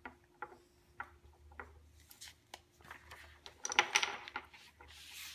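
Wooden Camelot Jr. puzzle blocks clicking and knocking against each other and the wooden base as they are set in place, with a quick cluster of clatter about four seconds in. A short rustle follows near the end.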